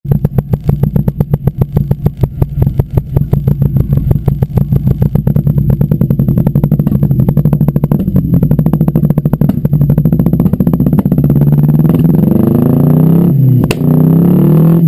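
Nissan CA18DET turbocharged 1.8-litre four-cylinder engine, breathing through a straight-through 3-inch exhaust and 4-inch stainless blast pipes, running with an uneven pulsing exhaust beat, then revving up over the last few seconds.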